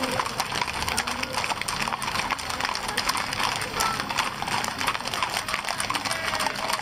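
Hooves of many horses clip-clopping in a dense, irregular clatter of hoofbeats.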